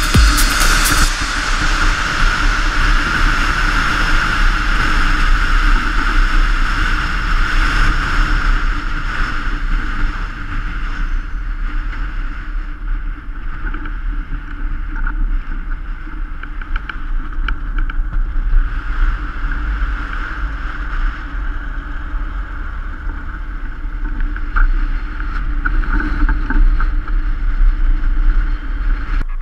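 Wind rushing and buffeting over a camera mounted on the outside of a moving truck cab, with the truck's engine and road noise underneath. It eases off around the middle as the truck slows, then builds again near the end.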